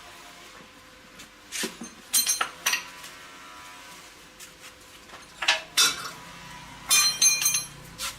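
Metal parts and tools clinking and clattering against each other in several short bursts, some strikes leaving a brief metallic ring.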